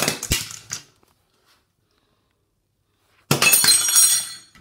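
Flipped bottles landing and clattering on a porcelain bathroom sink and counter, twice. The second clatter, about three seconds in, is louder and has a bright, glassy ringing, as if striking a glass or metal fixture.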